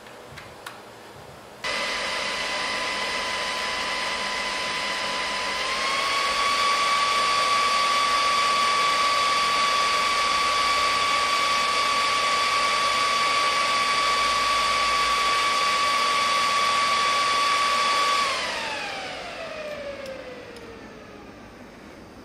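Cooling fan of a Chinese-made 10/15A adjustable electric-scooter fast charger, starting abruptly as it charges at about 10 A. It runs as a loud whine with a steady high tone that steps up slightly about six seconds in, then winds down with falling pitch near the end as the charge current drops to zero.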